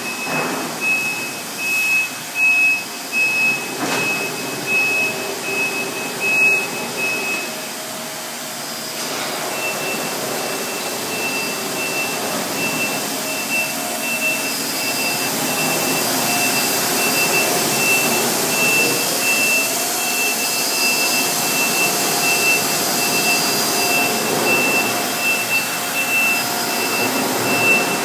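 Industrial laundry machinery running with a steady loud rushing noise, over which an electronic warning beeper sounds in a fast string of high beeps. The beeping stops for a moment about eight seconds in and then starts again. A few knocks come in the first several seconds.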